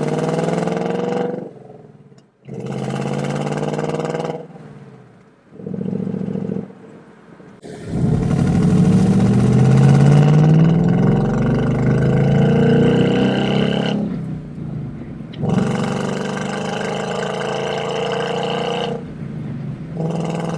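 Ford Mustang GT's 5.0-litre Coyote V8 exhaust accelerating through several pulls, its pitch rising in each, with brief drops in level between them. The longest and loudest pull comes about eight seconds in.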